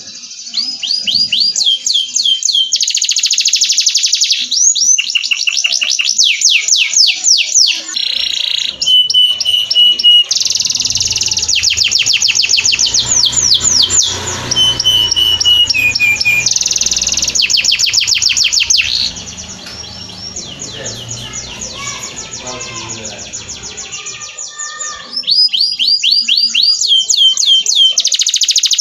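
Domestic canary singing: long rolls and trills of fast, repeated falling notes, broken into phrases, with a quieter stretch about two-thirds of the way through.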